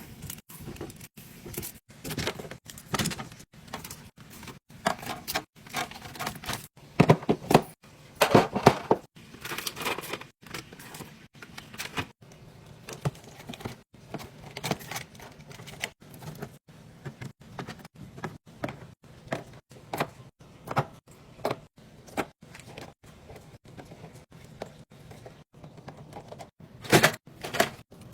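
Irregular clicks, taps and light clatter of snack packages and plastic containers being handled and set down in a fridge drawer, with a cluster of louder knocks partway through.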